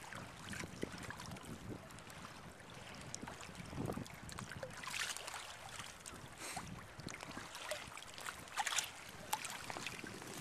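Choppy water sloshing and lapping close to the microphone around someone wading chest-deep, with short splashes now and then.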